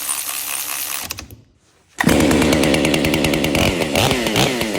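Chainsaw engine starting to run about two seconds in, loud and revving, its pitch rising and falling. Before it, a fainter hissing noise stops about a second in.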